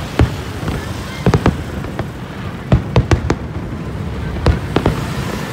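Fireworks going off: about eight sharp bangs at irregular intervals, some in quick pairs and clusters, over a steady background noise.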